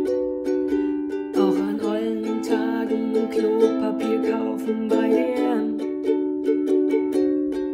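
Ukulele strummed in a steady rhythm of chords. A woman's voice sings over it for about four seconds in the middle.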